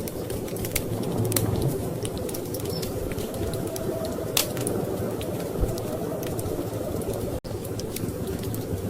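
Wood fire crackling, with many scattered sharp pops, over a steady low rumble of storm wind. The sound cuts out for an instant about seven seconds in.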